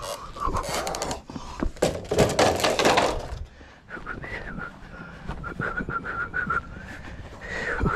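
Knocks and scraping as a white vinyl deck railing section is handled and carried, with a loud scraping rustle about two seconds in.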